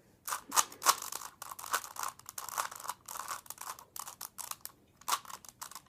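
3x3 Rubik's Cube being turned by hand: its plastic layers click and clack in quick, uneven runs of turns.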